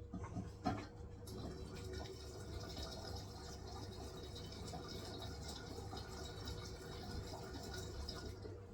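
Hisense washing machine on a wool cycle taking in water: a steady hiss of water filling starts suddenly about a second in and runs until near the end, over a low steady hum, with a few knocks at the start.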